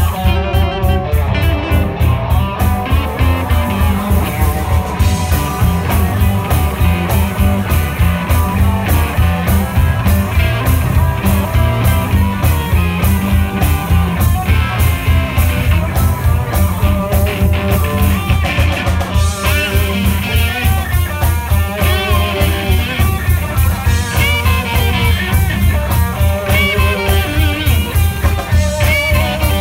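Live band playing: electric guitar lead with bent notes over bass guitar and a steady drum-kit beat.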